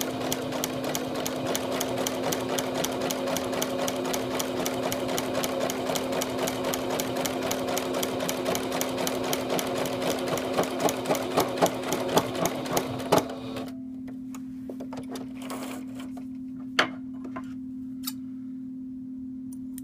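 Sewing machine with a walking foot fitted, stitching at a steady pace: a fast, even clatter of needle and foot that stops about thirteen seconds in. After it stops, a steady hum stays, with a few light clicks.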